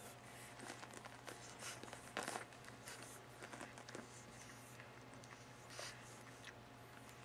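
Newborn American Bully puppies nursing: faint scattered snuffling, suckling and rustling noises, the strongest about two seconds in, over a steady low hum.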